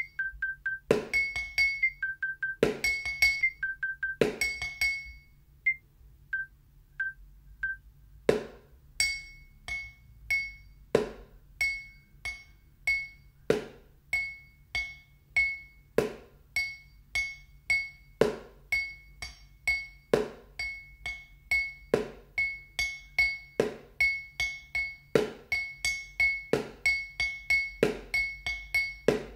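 Wooden sticks drumming a steady rhythm on a glass tumbler and a plastic food container, sharp clinks and knocks, over a metronome click whose accented first beep is higher than the rest. The playing stops for about four seconds early on while the metronome counts four beats, then resumes.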